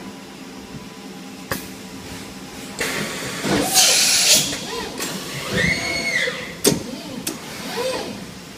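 Kitamura HX400G horizontal machining centre starting its program: clicks, a short loud burst of air hiss, and a whine that rises and then falls, as the machine makes its moves before cutting.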